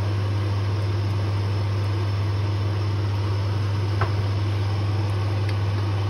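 A steady low hum with a faint haze of noise, and one light knock about four seconds in from a wooden spatula against the pot.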